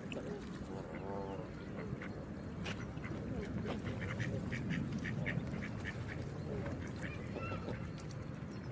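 Geese calling in honks and short rapid cackles over a steady rush of water.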